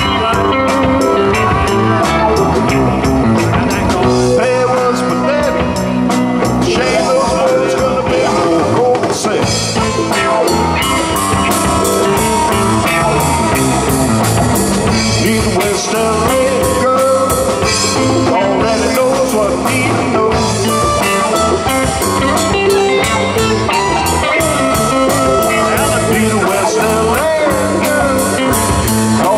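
Live blues-rock band playing: electric guitars over bass and a drum kit keeping a steady beat.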